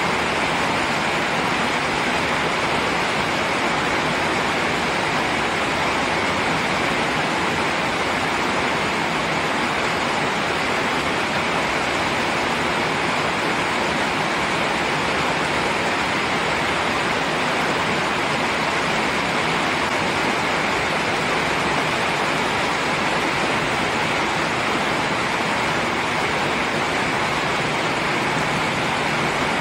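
Steady rain, an even unbroken hiss.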